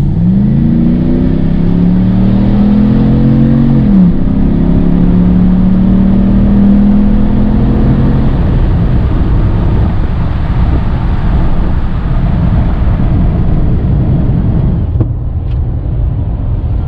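Ram 1500's 5.7L Hemi V8, fitted with a K&N cold-air intake, accelerating hard. Its pitch climbs, drops sharply at a gear change about four seconds in, and climbs again. From about eight seconds in, steady road and wind rumble takes over as the truck cruises.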